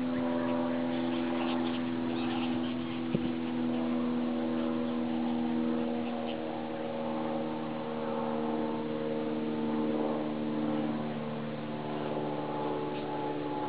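A steady hum of several overlapping tones, drifting slightly in pitch, with a single sharp click about three seconds in.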